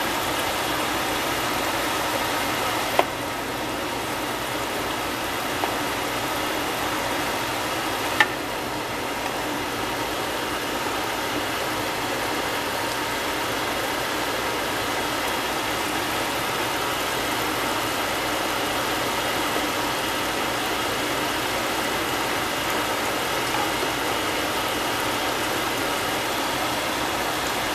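A steady mechanical hum with several faint steady tones, like a kitchen fan or motor, with a few short sharp knocks about three, six and eight seconds in.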